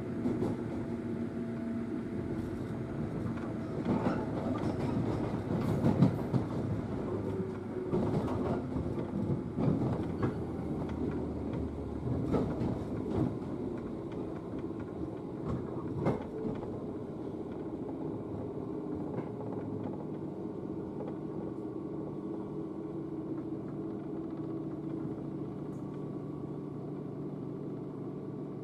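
103 series electric train running, heard from inside the passenger car: sharp knocks of the wheels over rail joints through the first half over a steady running hum with a few held tones, settling into a smoother, even drone in the second half.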